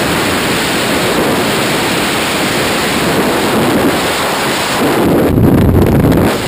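Freefall wind rushing loudly over the camera's microphone. About five seconds in it turns into a heavier low buffeting as the parachute deploys and opens.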